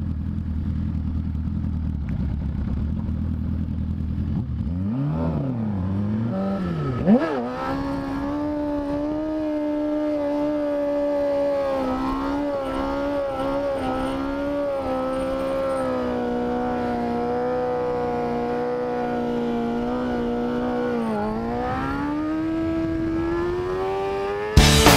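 Suzuki GSX-R 750 inline-four sportbike engine idling at a stop, then revved. A sharp click follows, and the engine is held at high, steady revs with a slight waver through a wheelie. Near the end the revs dip briefly and climb again.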